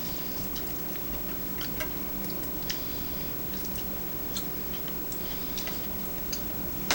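Eating sounds: chewing, with scattered short clicks and small crunches, over a steady low hum.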